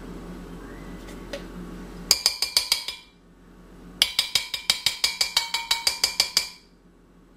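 A metal utensil tapping quickly against a glass blender jar, scraping off peanut butter, in two runs of ringing clinks at about eight a second: a short run about two seconds in and a longer one from about four to six and a half seconds.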